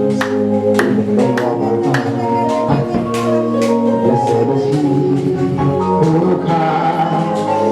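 Live worship music: long held chords with a steady beat of percussion strikes.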